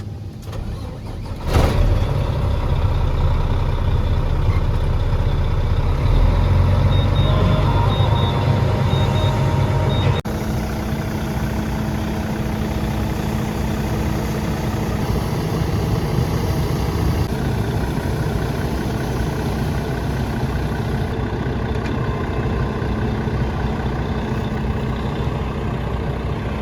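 Heavy farm diesel engines running. A sharp burst comes about a second and a half in, then loud, steady low engine noise follows. About ten seconds in it changes abruptly to a different steady engine sound.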